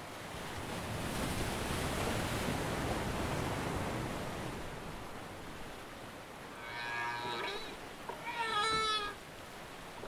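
Ocean surf rushing, swelling for the first few seconds and then fading, followed near the end by two whale calls, the second wavering and falling in pitch.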